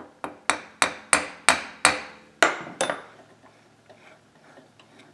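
A small hammer tapping a chainsaw cylinder clamped in a mini lathe: about nine sharp, ringing taps, some harder than others, that stop about three seconds in. The taps nudge the cylinder true while it is checked with a dial indicator.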